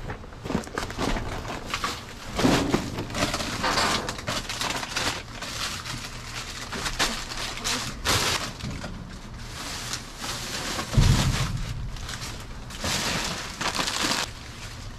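Plastic trash bags and plastic packaging rustling and crinkling in irregular bursts as trash is rummaged through by hand, with one heavy thump about two-thirds of the way through.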